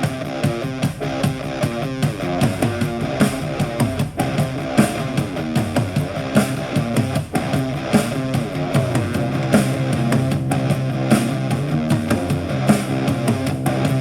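Alternative/punk rock music with guitars and a steady beat, played back through a JBL Go 3-style portable Bluetooth speaker in a sound test.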